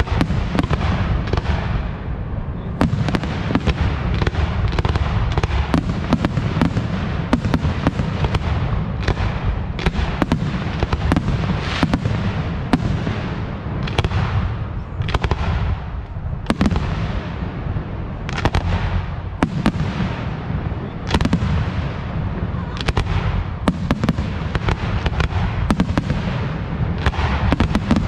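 Aerial fireworks display: shells bursting in rapid succession, two or three sharp bangs a second over a continuous low rumble of booms.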